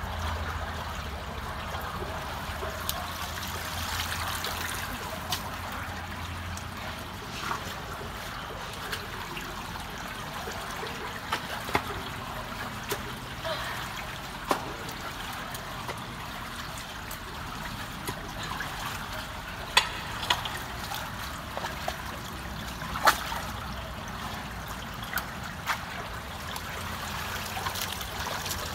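Water trickling steadily through a culvert partly blocked with sticks and debris, with scattered sharp knocks and snaps as the debris is worked loose and pulled out.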